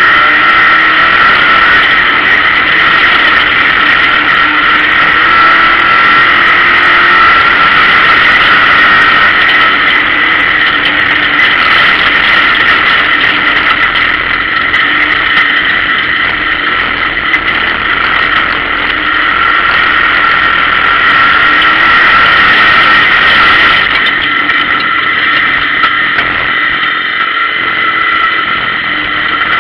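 Race car engine running under load, heard loud from inside the stripped, roll-caged cabin, with a steady high whine over the noise.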